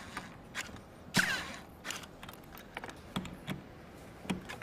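Scattered light clicks and ticks of a cordless screwdriver working the mirror's mounting screws into the door, with one sharper click about a second in. The screw is binding in its thread, which is put down to dirt or paint in the thread.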